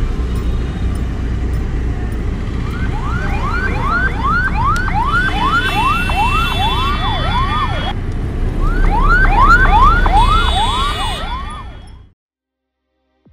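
Ambulance siren on a fast yelp, its pitch rising and falling about three times a second, in two runs with a short break between, over a low vehicle rumble. The sound fades out quickly near the end.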